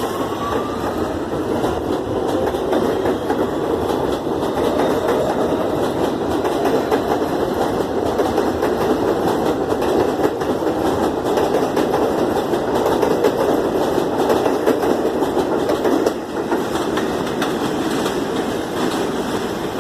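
R160 subway train pulling out and running along the track: a loud, steady rumble of wheels on rail with clicking over the rail joints, and a faint rising motor whine at the start as it accelerates. It gets quieter near the end.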